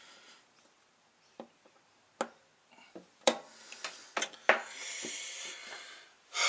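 Small sharp metallic clicks and ticks, the loudest a little past three seconds in, as a wrist-pin retaining clip is worked with a small screwdriver into its groove in a forged piston. A soft hiss follows in the second half.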